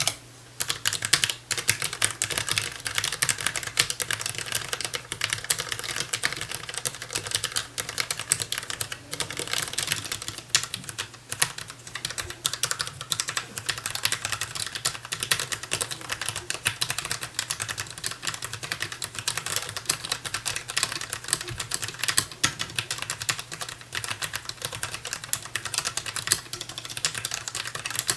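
DAREU EK820 low-profile mechanical keyboard with Kailh low-profile red (linear) switches, typed on fast and without a break: a dense, uneven stream of keystrokes.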